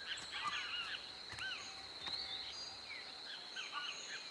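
Several birds chirping and whistling over a steady, high-pitched insect drone.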